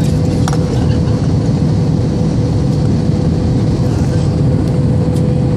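Jet airliner cabin noise on approach with the flaps extended: a steady, loud rumble of engines and airflow, with a steady hum running through it.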